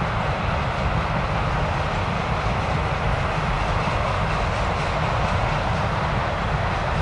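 Freight train boxcars rolling steadily past, a continuous noise of steel wheels on rail that holds an even level throughout.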